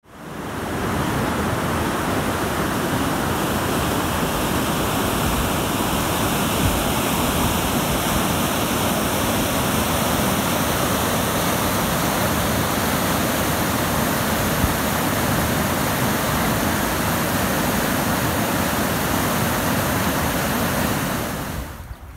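The flooded Sèvre Nantaise river pouring over a weir: a loud, steady rush of water. It fades in over the first second and drops away just before the end.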